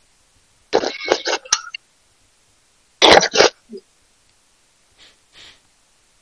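A man eating loudly right up against a voice-chat microphone. There are harsh, clicky mouth noises about a second in, a loud double burst at about three seconds, and two faint ones near five seconds.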